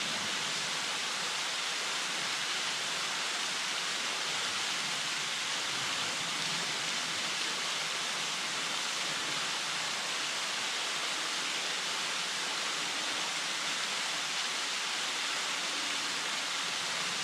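A thin waterfall dropping from a rock overhang, a steady, even hiss of falling, splashing water.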